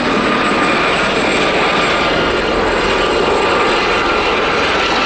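Several Westland Gazelle helicopters flying past in formation, their Turbomeca Astazou turboshaft engines and rotors making a steady, continuous noise with a high, even whine running through it.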